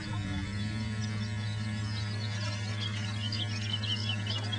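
A steady low hum, with faint high chirps and squeaks in the last second or so.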